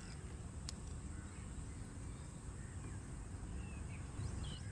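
Low, steady background noise with a few faint, short bird chirps, and a single light click about a second in.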